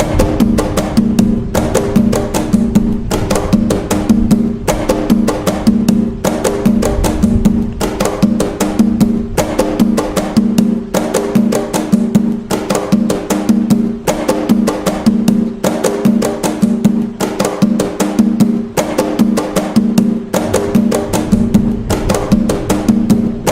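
Atabaque hand drums playing the nagô rhythm (toque nagô), a steady, repeating pattern of sharp hand strikes over a deep drum tone.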